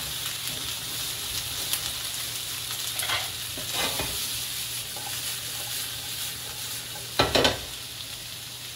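Chopped bell peppers, onions and celery sizzling in hot oil in a wok, stirred with a wooden spatula and tossed. There is a steady sizzle with a few scrapes, and a couple of sharp knocks near the end.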